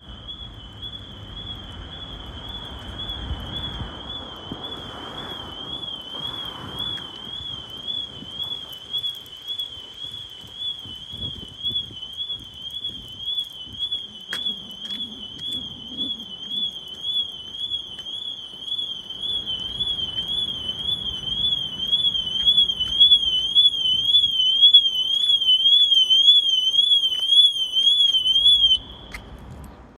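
Panic alarm sounding a high, rapidly warbling electronic tone. It grows louder in the second half and cuts off suddenly near the end.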